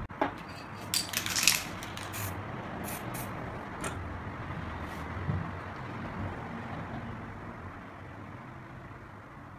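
Handling noise from art materials: a few sharp clicks and short hissy rustles, mostly in the first four seconds, over a steady low background noise that slowly fades.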